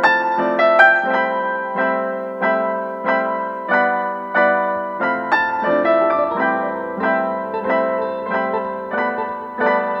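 Background piano music with a gentle, even rhythm of notes, a lower bass part joining about halfway through.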